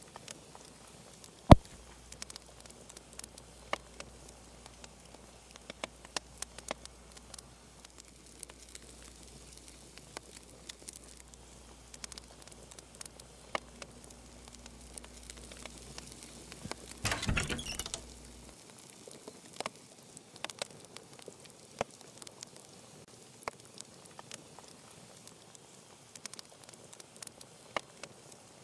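Faint, scattered clicks and taps, with one sharp louder click about a second and a half in and a short rustling burst around seventeen seconds.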